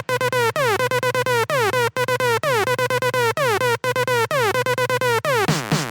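Background electronic music: a repeating synthesizer pattern of notes that each slide down in pitch, about two a second, over a steady low bass note.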